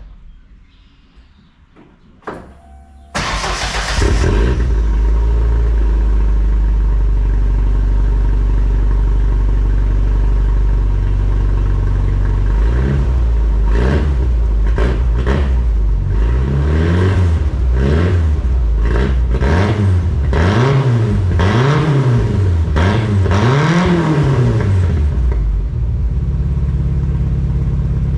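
1994 Ford Ranger's 2.3-litre inline four-cylinder engine starting about three seconds in and idling loudly with no muffler, exhaust open right after the catalytic converter. From about halfway it is revved in a string of short blips, then settles back to idle near the end.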